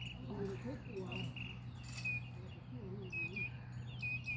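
Outdoor ambience: short, repeated high chirps over a steady low hum, with faint distant voices at times.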